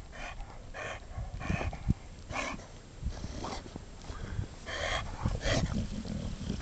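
A dog breathing hard after running fetch in the snow: a string of short noisy breaths, over a low rumble of wind on the microphone.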